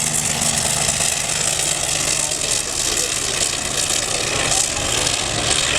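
Royal Aircraft Factory SE5a's 200 hp Wolseley Viper V8 engine running as the biplane takes off, a steady drone under a wide hiss, its low hum fading after a second or so.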